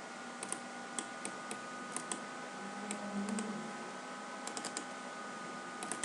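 Scattered sharp clicks of a computer mouse, some singly, a quick pair about two seconds in and a rapid run of four about four and a half seconds in, over a steady electrical hum.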